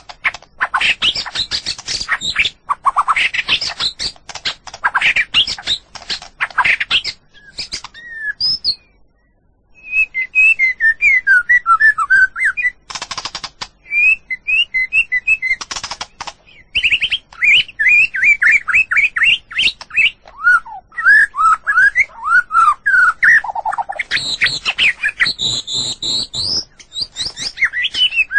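White-rumped shama singing a long, varied song. It opens with harsh, rattling phrases, pauses briefly about nine seconds in, then runs through series of clear whistled notes that slide down in pitch, with higher notes near the end.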